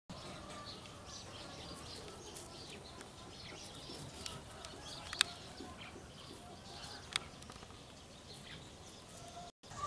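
Quiet outdoor background with faint bird chirps, and two sharp clicks about five and seven seconds in.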